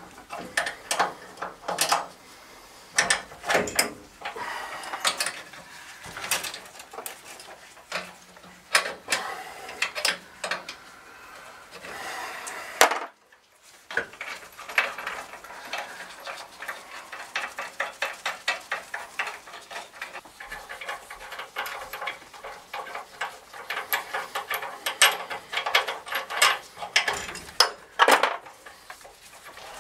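Hand tools and metal parts clicking, clanking and scraping as a hot-water circulator pump is worked off and onto its pipe flanges. The clicks come irregularly, then in quick dense runs in the second half.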